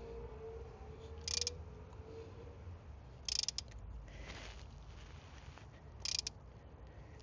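Torque wrench and socket on cylinder head bolts: three brief metallic clicks or rattles spread over several seconds, with a faint hum underneath.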